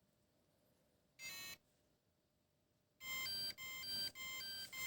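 Bait-boat remote control sounding its low-battery alarm: one short beep about a second in, then, from about three seconds in, a fast run of beeps in several pitches. This is the more intense warning the remote gives when the boat's 12-volt power battery sags to 9 volts under load.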